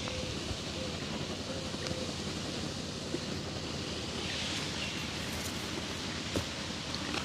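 Steady hiss of background noise with a few faint ticks.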